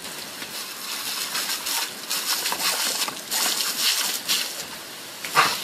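Garden hose spray nozzle jetting a hard stream of water that spatters on a dog and wet concrete, a steady hiss with a short, sharper burst about five seconds in.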